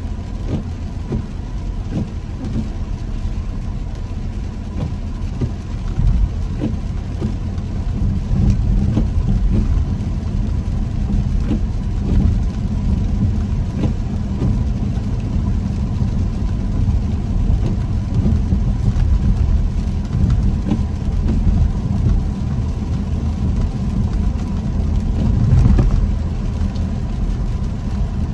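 A car driving on a wet road, heard from inside the car: steady low road rumble and tyre noise with faint ticks of rain. It grows louder about six to eight seconds in.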